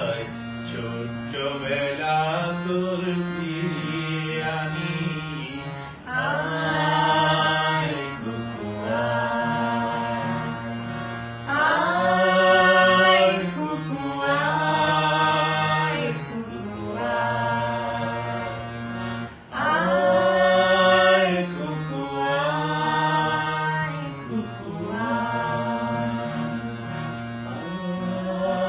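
A man singing a Bengali song in long, drawn-out notes that bend and glide, in phrases a few seconds long, over a steady low drone.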